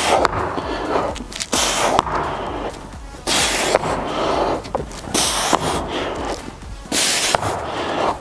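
A man's forceful, noisy exhales as he does dumbbell renegade rows, about one every two seconds, over background workout music.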